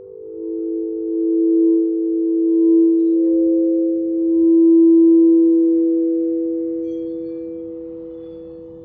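Ambient music of several held, pure, bell-like tones overlapping in a slow drone, with a higher tone joining about three seconds in; the sound swells, then slowly fades away over the second half.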